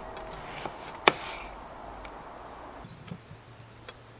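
Chef's knife cutting through a red onion onto a wooden cutting board: a soft knock, then one sharp knock of the blade hitting the board about a second in.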